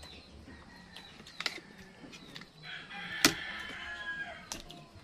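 A rooster crowing once, starting a little under three seconds in and lasting about two seconds, with a few sharp clicks, the loudest in the middle of the crow.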